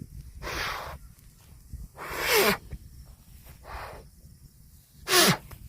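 A cow blowing out in short, noisy snorts, four in all about a second and a half apart. The two loudest end in a brief falling grunt.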